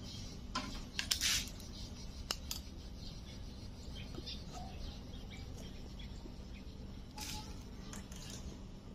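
Scattered light clicks and rustles of wiring and small parts being handled inside an opened microwave oven, over a low steady hum.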